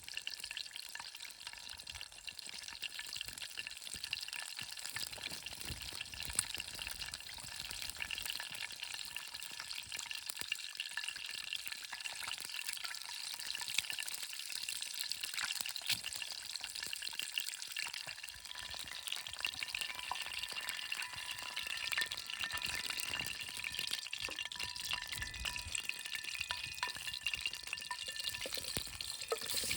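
Food sizzling in hot oil in a frying pan, a steady dense crackle of fine pops.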